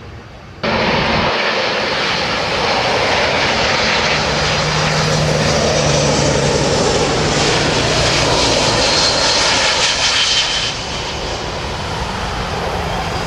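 Four turbofan engines of a Boeing C-17 Globemaster III running loud as it passes low on landing. The jet noise cuts in suddenly just under a second in and eases off a little near eleven seconds as the aircraft settles onto the runway.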